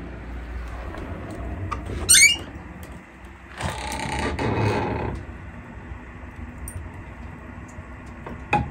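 Old wooden door being opened: a short rising hinge squeal about two seconds in, then a rough scraping for about a second and a half.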